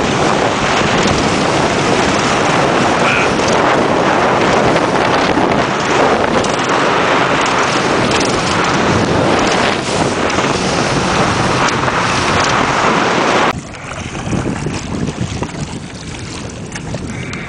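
Wind rushing over the microphone and water rushing past on a boat running at speed over open sea, a loud, even noise that cuts off abruptly about thirteen seconds in to a much quieter rustle of wind and water.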